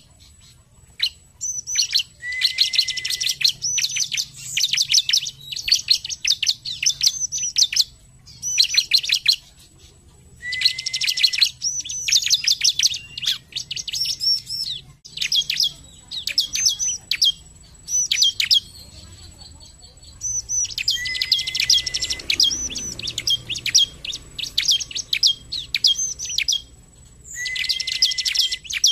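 Bar-winged prinia (ciblek) singing in several long bursts of rapid, high chirping notes, each burst opening with a short, lower held note, with scattered single chirps between the bursts.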